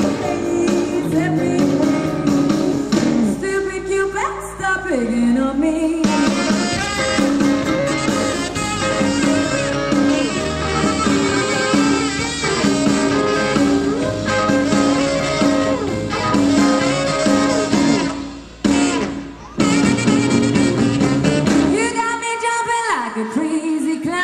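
Live band with a plucked upright double bass and saxophone playing an instrumental break in a late-1950s rock-and-roll song. The sound drops out briefly about three-quarters of the way through.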